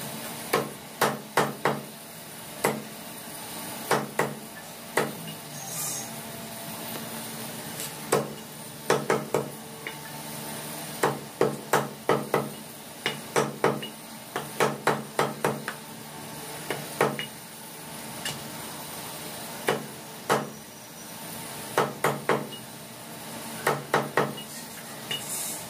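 Heavy steel cleaver chopping through chicken meat and bone into a thick wooden chopping block: sharp chops in quick runs of two to five strokes with short pauses between. A steady low hum runs underneath.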